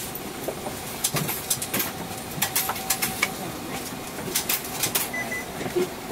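Inside a Mitsubishi Aerostar one-step city bus: a steady background hum with irregular sharp clicks and rattles, several in quick clusters through the middle.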